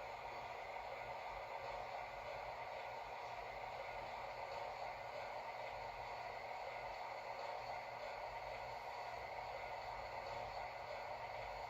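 Steady faint hiss with a low hum: room tone with no distinct sound event.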